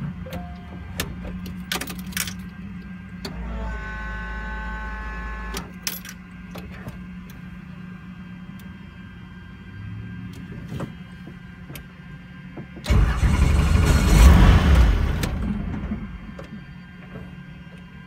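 Robinson R44 Raven II helicopter's six-cylinder Lycoming engine running just after start-up, a steady low hum, with switch clicks from the cockpit controls. A brief steady tone sounds about four seconds in, and a loud rushing noise rises about thirteen seconds in and dies away over some three seconds.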